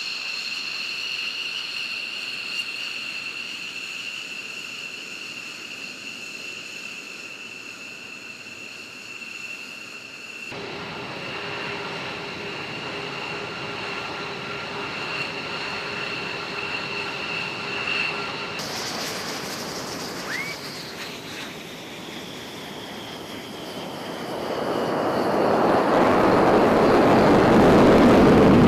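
Fighter jet engines (an F-16, then an F-22) whining steadily at taxi power, a high-pitched whine over a low rumble. Near the end a jet's takeoff roar builds up to the loudest part.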